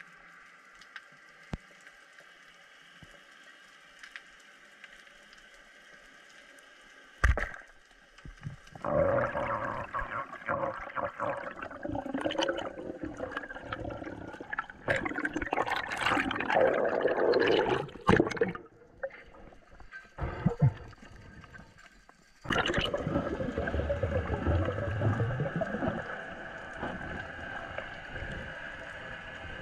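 Water sloshing and gurgling around an underwater camera housing as a spearfisher swims: a faint steady hiss at first, a single sharp knock about a quarter of the way in, then loud irregular rushing and bubbling that drops away for a few seconds past the middle and comes back, fading near the end.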